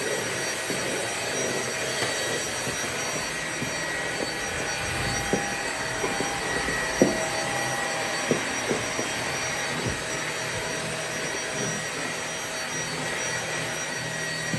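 Vacuum cleaner running steadily, a smooth motor and airflow noise with a faint even whine. A handful of short sharp clicks come through it in the middle, the loudest about halfway through.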